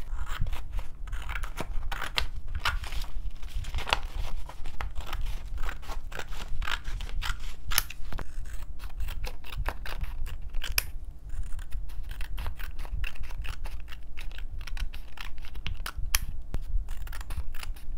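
Scissors cutting through a paper pamphlet in a run of quick snips and paper rustles, over a low steady hum.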